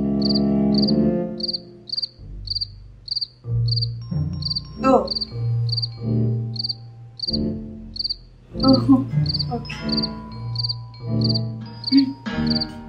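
Cricket chirping, about two chirps a second, the comic 'awkward silence' sound effect, laid over low background music whose bass notes change about once a second.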